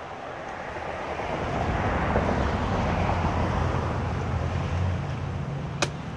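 A vehicle passing: road noise with a low rumble builds over about two seconds and fades away over the next three. A single sharp click comes just before the end.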